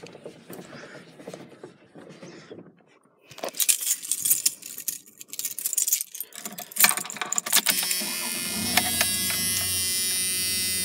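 Keys and keychain jangling against the ignition of a 1992 Dodge Dakota pickup as they are handled, with a run of jingling clicks. About eight seconds in, the truck's engine starts and settles into a steady idle.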